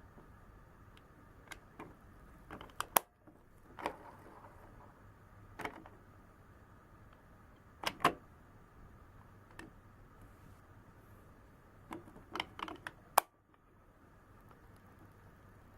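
Plastic clicks and knocks from handling an Anpanman toy microwave oven, such as its door and buttons, coming irregularly about a dozen times. The sharpest clicks come about three seconds in and near the end, and each is followed by a sudden drop in the faint steady background.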